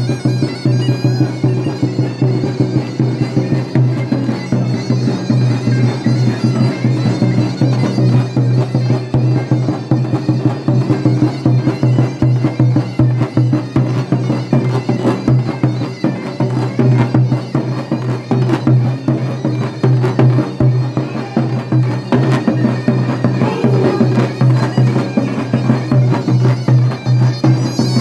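Davul and zurna playing live horon dance music: a zurna melody over a dense, even run of davul drum strokes.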